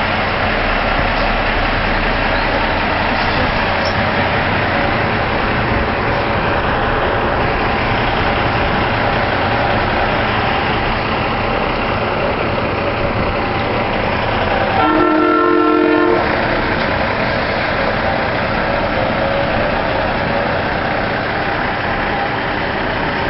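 Semi-truck tractor-trailers running steadily as they pull away. One truck horn blast of about a second sounds roughly fifteen seconds in.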